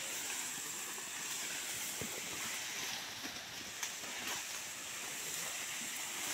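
Tall grass rustling and swishing against elephants as they push through it: a steady rustling hiss with a few faint snaps of stems.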